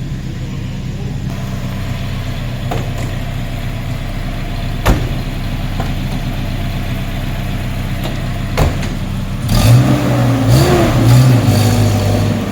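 A vehicle engine running steadily, with two sharp clicks about five and eight and a half seconds in. In the last few seconds it gets louder and its pitch rises and falls.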